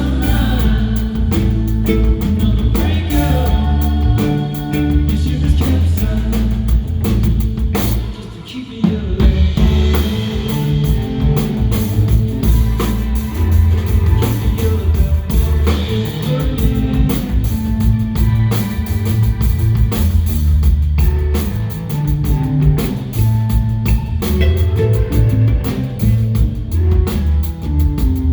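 Live band music from a concert performance, with drums and guitar; the music drops briefly about eight seconds in.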